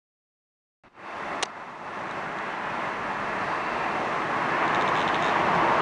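Silence, then about a second in a steady rushing outdoor background noise begins and grows slowly louder, with a single sharp click shortly after it starts.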